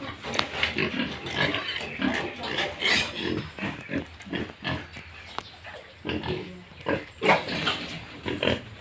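Pigs grunting and calling, with many short overlapping grunts and squeals coming irregularly.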